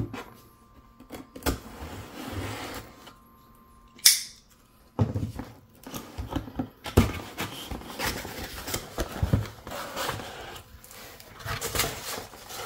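A cardboard shipping box being cut open and unpacked: scissors snipping the packing tape, cardboard flaps knocking and scraping, and irregular clicks from handling. The loudest sound is one short, sharp rip about four seconds in, and near the end hands rustle through foam packing peanuts.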